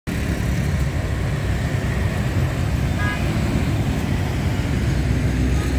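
Steady rumble of city street traffic, mostly motorbikes crossing an intersection, with a short horn beep about three seconds in.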